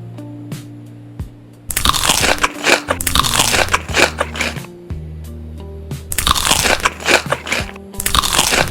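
Crunchy food being bitten and chewed close to the microphone, in two spells of dense crackling crunches, the second starting near the end, over background music.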